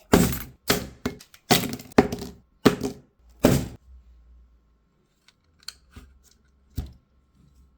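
A quick run of about seven loud knocks or impacts over the first four seconds, then a few faint clicks and one more knock near the end.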